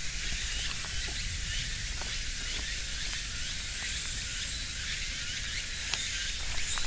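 A steady high hiss of an insect chorus, dotted with many short high chirps, over a faint low rumble of wind.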